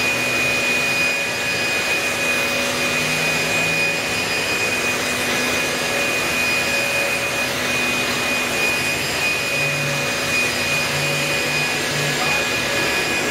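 Corded electric leaf blowers running steadily as they blow rainwater off wet asphalt: a constant rush of air with a steady high whine.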